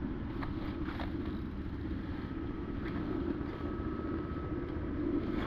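Steady rushing of a shallow river running over stones, with a few faint clicks.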